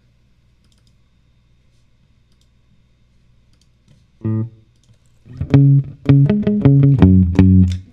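Electric guitar played through an amp-simulator plugin with a gate/compressor and reverb, chopping short, evenly spaced chord stabs in a reggae skank rhythm. The first few seconds hold only a faint hum; one chord sounds about four seconds in, and the steady stabs start about a second later.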